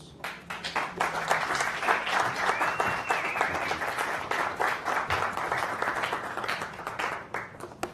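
Audience applauding, starting just after the start and dying away near the end.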